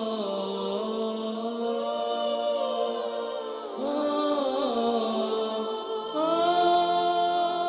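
Slow vocal chant as intro music, long held notes sliding between pitches, with a louder phrase entering about six seconds in.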